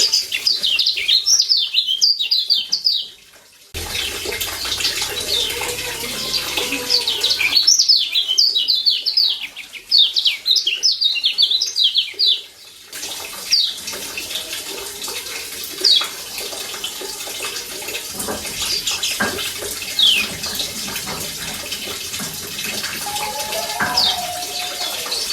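Lombok yellow white-eye (kecial kuning) giving fast runs of high, sharp 'ciak' chirps in two bursts, then single chirps every few seconds over a steady hiss.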